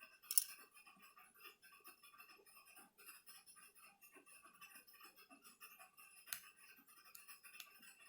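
Faint handling sounds of small tools and laptop parts as a new laptop battery is fitted and secured: light clicks and scrapes, with a sharper click about half a second in and another around six seconds.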